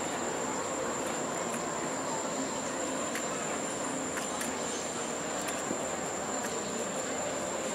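Steady high-pitched insect trill over an even background haze of outdoor noise.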